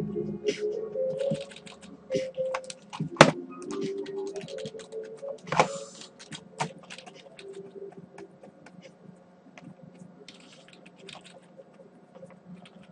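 Computer keyboard keys clicking in scattered single taps and short runs, over background music that trails off about two-thirds of the way through.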